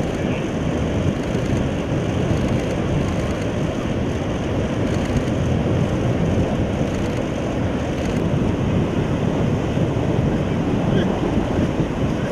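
Steady wind noise on the microphone over the wash of breaking ocean surf.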